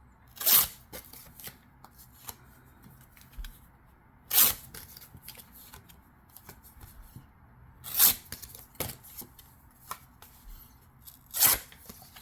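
Trading cards being handled and slid against each other: four louder swishes spaced about three and a half seconds apart, with small clicks and rustles between.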